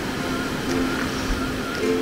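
Ocean surf washing steadily, with light ukulele background music coming in under it less than a second in.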